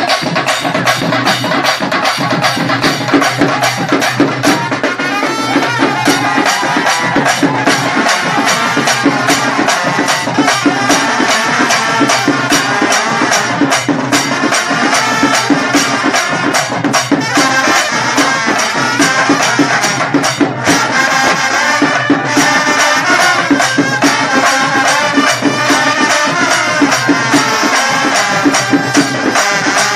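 Loud music with a fast, steady percussion beat.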